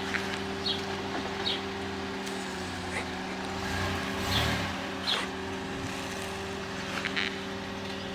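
Chevrolet S10 pickup's engine idling steadily as the truck creeps into position, with a slight swell about halfway through. A few short high chirps sound over it.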